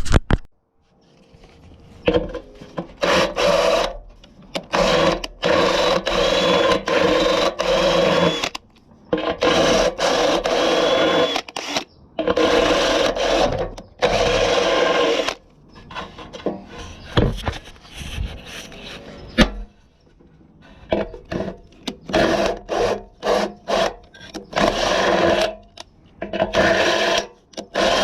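A handheld power tool running in repeated bursts of one to four seconds, its motor holding a steady tone, with short clicks and knocks between the runs.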